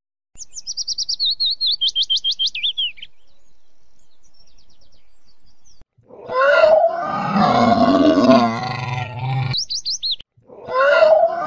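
Dinosaur sound effects: a quick run of high, rapidly repeated chirps, then about six seconds in a long loud roar, a brief high chirp, and a second roar starting near the end.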